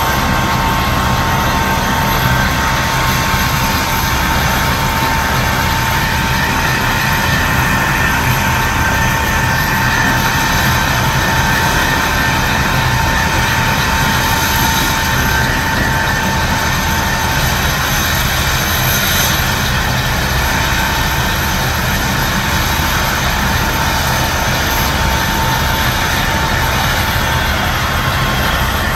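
Turbine helicopter running on the ground after landing: a steady high whine over a low rumble, without change.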